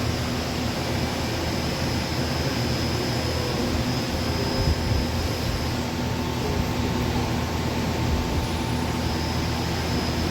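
Powered-up Okuma LU-400 CNC turning center running with a steady mechanical hum, a faint thin tone joining about halfway through.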